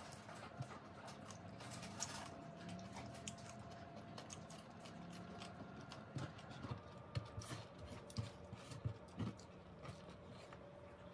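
Chewing and mouth smacks of a person eating fried chicken and rice by hand, with scattered small clicks and taps of fingers on a wooden cutting board, over a faint steady hum.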